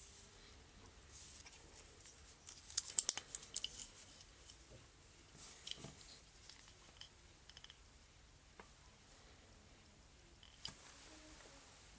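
Small clicks and rustles from a wooden watch and its packaging being handled, loudest a quick cluster of sharp clicks about three seconds in, with a few fainter clicks later.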